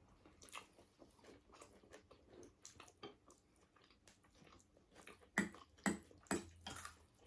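Close-up mouth sounds of eating: faint chewing with many small wet clicks, and four louder, sharper sounds about five and a half to seven seconds in.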